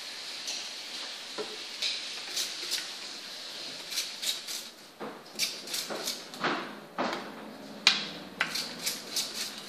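Hairdressing scissors snipping wet hair on a mannequin training head: a run of short, sharp, irregular snips, sparse at first and coming faster from about four seconds in, the loudest near the end.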